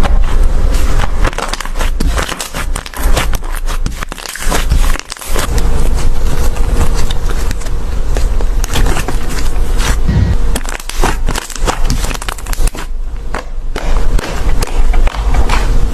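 Slime being squished and poked by hand: dense, irregular crackling and clicking.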